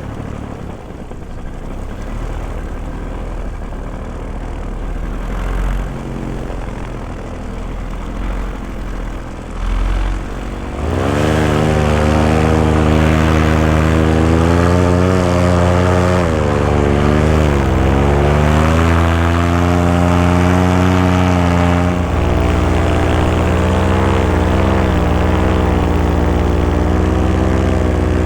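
Paramotor engine and propeller running low for about ten seconds, then throttled up sharply to high power. The pitch dips and comes back once, then holds steady at full throttle.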